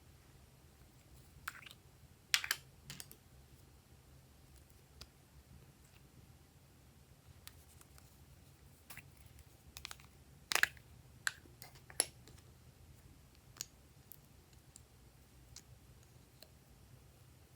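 Glossy slime being kneaded and stretched by hand: scattered sticky clicks and pops, the loudest about two and a half seconds in and again around ten and a half and twelve seconds in.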